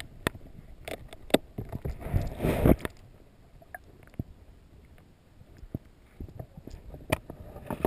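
Muffled underwater handling noise from a submerged camera: scattered sharp clicks and knocks, with a louder swishing rush of water about two to three seconds in.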